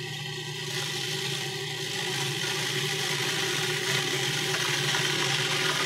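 Food processor motor running steadily, puréeing a basil, shallot and pine nut pesto while olive oil is drizzled in through the feed tube. The whir gets a little louder and brighter over the first couple of seconds.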